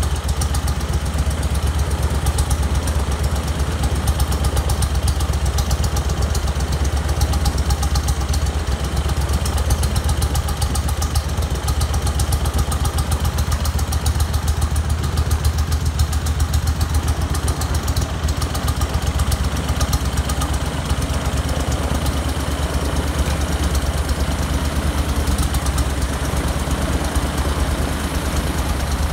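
Briggs & Stratton twin-cylinder engine with a double carburettor setup, mounted in a Nieuport 11 replica, running at a steady speed and turning its propeller, with a fast, even firing beat throughout.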